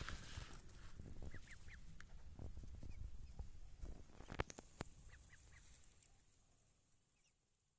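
Duckling peeping faintly in short, high, falling chirps, with two sharp clicks about halfway through and a low rumble that fades away toward the end.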